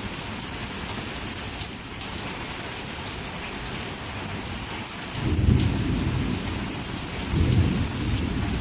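Heavy rain pouring down steadily, with two low rumbles of thunder, one about five seconds in and another about two seconds later.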